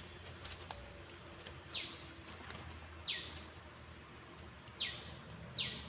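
A bird repeating a short call that drops sharply in pitch, four times, each call a fraction of a second long and about one to one and a half seconds apart, over a steady background hiss.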